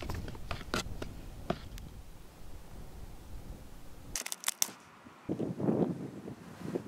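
A wooden stir stick stirring thick paint in a can, with quick taps and scrapes in the first second or so. Near the end, wind buffets the microphone in gusts.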